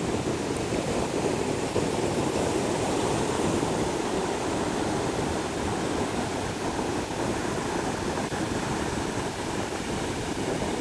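Ocean surf breaking and washing continuously on a beach: a steady rush of waves with no distinct single crashes.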